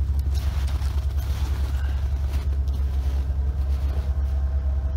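Snowmobile engine left idling, a steady low rumble, with a few crunching footsteps in snow near the start and about halfway through.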